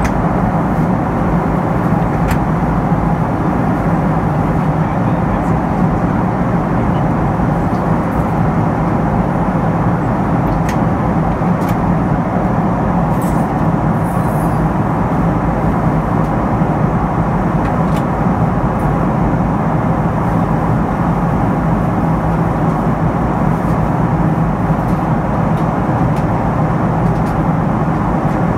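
Cabin noise in a Boeing 777-300 climbing after take-off: the Rolls-Royce Trent 800 turbofans running steadily at climb power, with a low hum under a rush of airflow, heard from inside the cabin.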